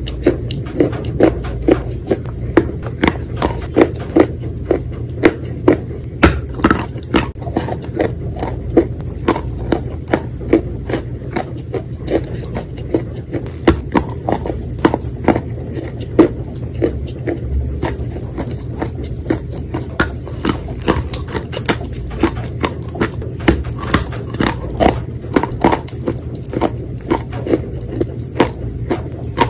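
Close-miked chewing of wet chalk coated in clay paste: a steady run of crisp, crunchy bites, about two or three a second.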